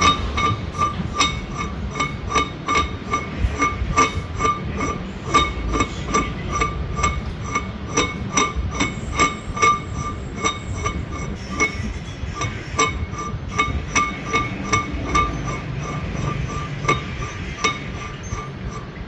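Hammer blows on steel, about two to three a second, each strike ringing at the same clear metallic pitch.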